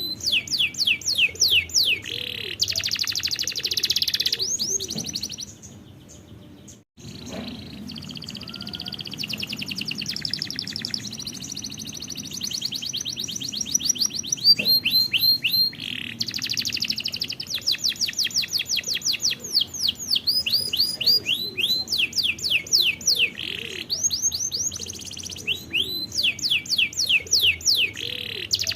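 Domestic canaries singing: long runs of rapid repeated sweeping notes and trills. The song dips and breaks off briefly about seven seconds in, then carries on.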